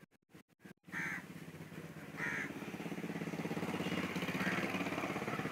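A crow cawing twice, a little over a second apart, over a steady low hum.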